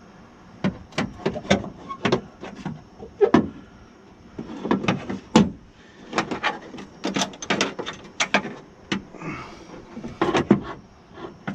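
Irregular clicks and knocks of bolts and a window regulator being fitted by hand into a car door, with short clusters of taps between quieter gaps.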